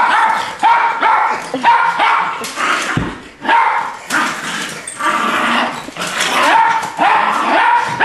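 Jack Russell terrier barking over and over, about two barks a second, as it attacks an ironing board, with a sharp knock about three seconds in.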